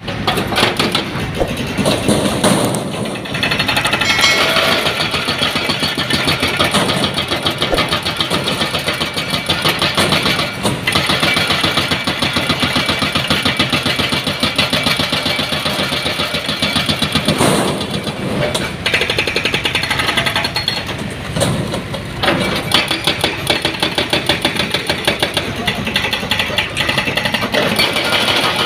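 Hydraulic breaker on a Hitachi excavator hammering into the concrete and masonry of an old railway tunnel arch: rapid, rapid-fire blows in long runs with a few brief breaks, over the excavators' diesel engines running.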